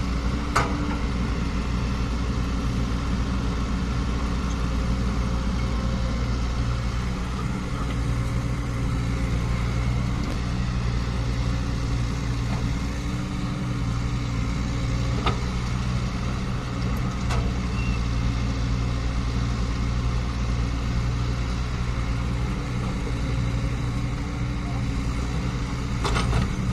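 Caterpillar 307E mini excavator's diesel engine running steadily at idle, with a few faint clicks.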